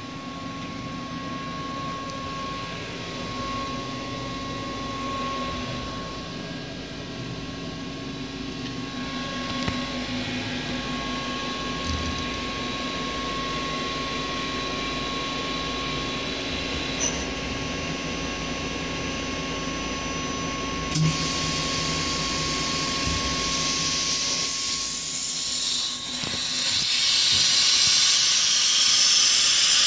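Fanuc Robodrill CNC vertical machining center running: a steady machine hum and whine with a few short clicks. A louder hiss builds in near the end.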